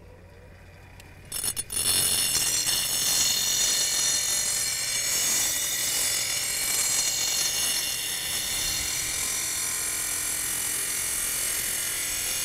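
Steel rotary lawn mower blade being sharpened on a motorized bench grinder. About a second and a half in, after a couple of brief scrapes, the blade meets the grinding wheel, and a loud, steady, high-pitched grinding of steel on stone runs on.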